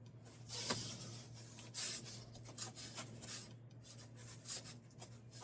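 Cardboard packaging of a 3D printer box being handled and pulled open: a series of short scraping, rubbing rustles over a steady low hum.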